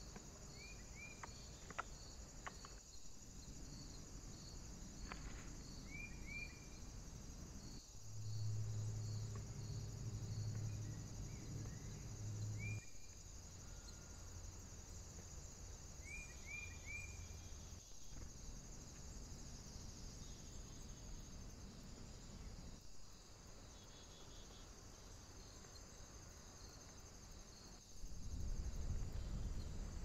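Faint woodland ambience: a steady high chirring, as of insects, with a faint pulse about twice a second. A few short high chirps and, in the first few seconds, some sharp clicks sound over it.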